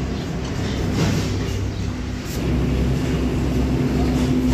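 Steady low engine rumble with a hum that grows stronger about halfway in, and a few light clicks.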